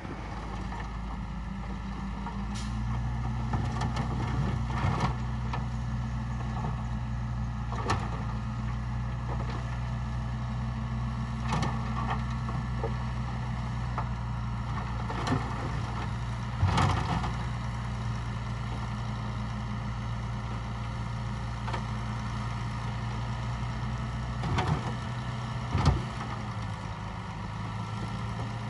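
Diesel engine of heavy earthmoving equipment running steadily, working harder from about two and a half seconds in and easing off near the end, with scattered short knocks.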